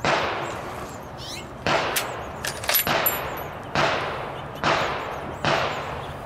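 A series of gunshots from other shooters on the range, about six in six seconds at uneven spacing, each ringing out for about a second. Light metallic clicks near the middle come from cartridges being pressed into a Karabiner 98k's magazine.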